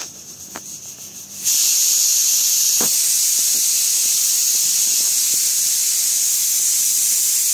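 Pressure cooker whistle blowing off steam: a long, loud, steady hiss that starts about a second and a half in.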